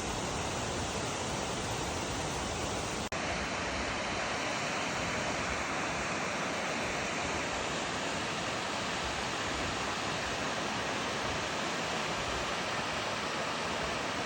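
Waterfall: a steady, dense rush of falling water, broken by a split-second gap about three seconds in where the recording cuts.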